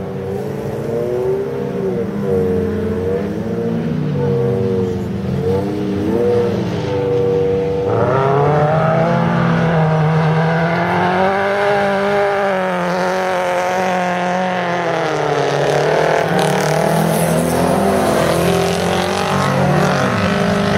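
Several autograss racing cars' engines revving hard together on a dirt track, each engine note rising and falling as the drivers change gear and lift for the corners. The sound gets fuller and louder about eight seconds in as the pack comes nearer.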